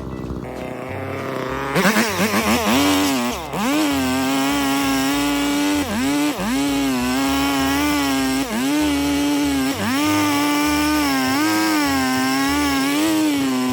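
Two-stroke chainsaw running at low speed, then revved up about two seconds in and held at high revs, the pitch dipping briefly every second or two.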